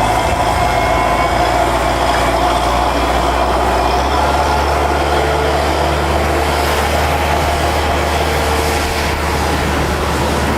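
Kubota L5740 tractor's diesel engine running steadily under load, a constant mechanical hum whose low note shifts slightly about four seconds in.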